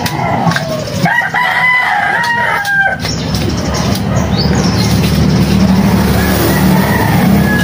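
A rooster crows about a second in, one long call lasting about two seconds, with a few light metal knocks from the steel spiral blade being handled. From about three seconds in, a steady low motor drone sets in and grows louder.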